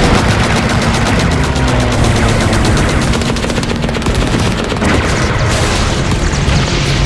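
Rapid, sustained machine-gun fire, a dense rattle of many shots a second, as from shipboard anti-aircraft guns, over a music bed with steady low held tones.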